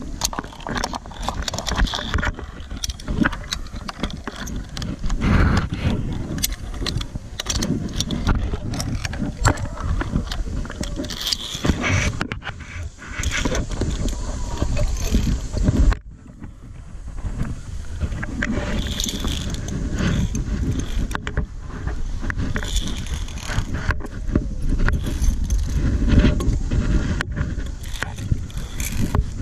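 Metal clinking and scraping of a ropes-course safety clip riding along a steel cable, with knocks from the suspended wooden bridge and a low rumble on the microphone. The sound dips briefly a little past halfway.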